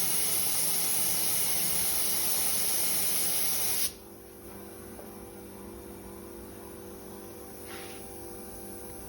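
Compressed-air paint spray gun hissing steadily as it lays a light coat of single-stage paint on a wheel's spokes. The trigger is released about four seconds in and the hiss cuts off suddenly, leaving a faint steady hum.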